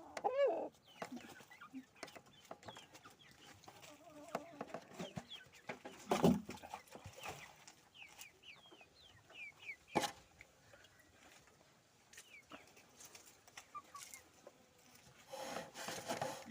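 Chickens clucking and calling, with a few sharp knocks, one about six seconds in and one about ten seconds in.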